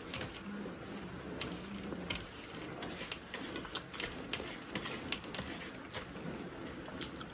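Close-up mukbang eating sounds: mouths chewing and smacking on egg fried rice while fingers scoop and scrape rice across steel plates, making a quick, irregular run of small clicks and ticks.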